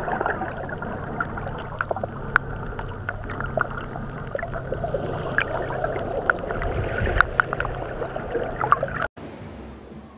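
Underwater sound picked up by a camera held below the surface while snorkelling: a muffled wash of water with many small sharp clicks and crackles scattered through it. It cuts off suddenly about nine seconds in, giving way to a much quieter background.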